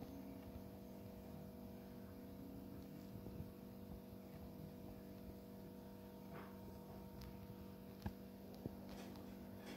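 Faint, steady electrical-sounding hum made of several even tones, with two small clicks near the end.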